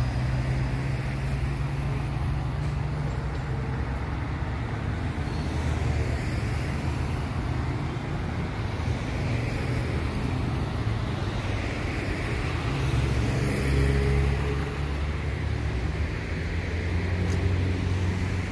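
Street traffic: a steady mix of car engines and tyre noise from vehicles driving along the road, swelling about 13 seconds in and again near the end as cars pass closer.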